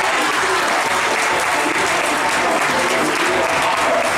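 Theatre audience and cast applauding: a dense, steady clapping at the curtain call.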